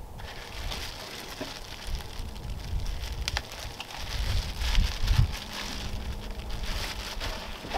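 Plastic bag rustling and crinkling as it is handled and rummaged through, with a few light clicks.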